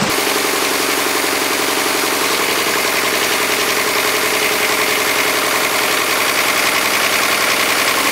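Backhoe loader's engine running under load as the front loader arms lift. It comes up sharply at the start, then runs steady, with a change in its low note near the end.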